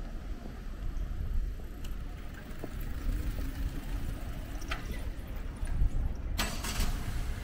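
Street traffic: a car's low engine rumble, with a short hiss about six seconds in.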